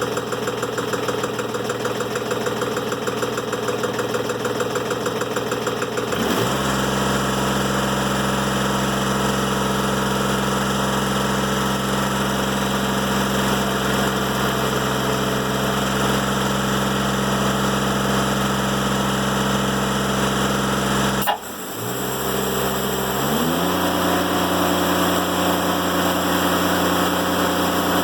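Timberking 1400 band sawmill's engine running, settling into a steady, even hum about six seconds in. About 21 seconds in there is a sudden dip, and two seconds later it settles into a steady hum at a slightly different pitch.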